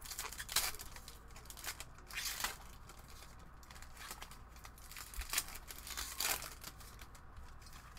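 Foil wrappers of Panini Prizm basketball retail card packs being torn open and crinkled by hand, in irregular bursts of crackling.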